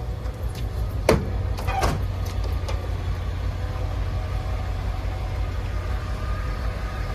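The 8.1-litre gasoline V8 of a 2001 GMC C7500 dump truck idling steadily. Two short, sharp sounds that fall in pitch come about a second in and again just under a second later.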